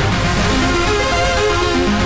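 Cherry Audio Elka-X software synthesizer, an emulation of the ELKA Synthex, playing its 'Trance AR' arpeggio preset: stepping synth notes over a low bass line, with a hiss of the synth's noise generator mixed in.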